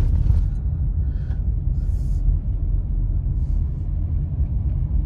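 Steady low rumble of a car driving on a wet road, heard from inside the cabin: tyre and road noise with the engine underneath.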